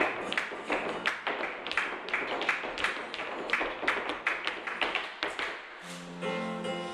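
Rapid, even percussive taps, about four a second, from flamenco dance practice, stopping about five and a half seconds in. Music with sustained notes starts near the end.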